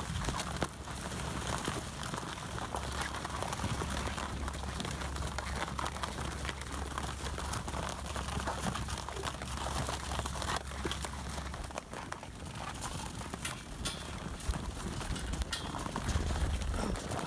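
A herd of Caspian mares feeding on hay spread over snow: crunching, rustling and scattered small knocks, over a steady low rumble that drops away about two-thirds of the way through.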